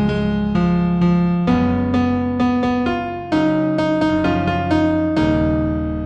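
New-age piano instrumental in F major: struck notes ringing and decaying, a melody over low bass notes that change every second or two.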